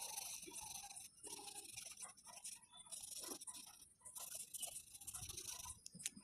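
Drawing tool scratching across paper in a series of strokes, each up to about a second and a half long with short pauses between them.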